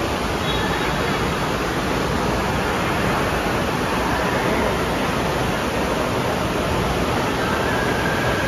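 Steady rush of water slide water pouring out of the tube exit and churning in the splash run-out pool.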